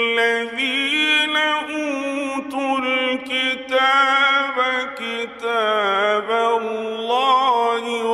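A man chanting Quran recitation in the ornamented mujawwad style, his voice through a microphone, drawing out long melismatic phrases that waver and bend in pitch.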